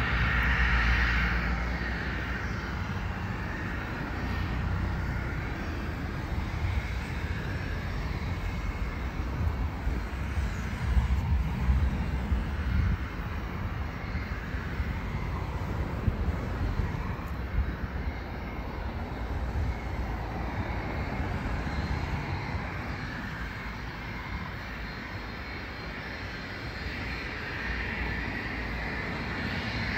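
Twin Pratt & Whitney PW530A turbofans of a Cessna Citation Bravo business jet running at low power as it taxis: a steady jet whine over a rumble. The whine is louder at the start, fades through the middle and swells again near the end.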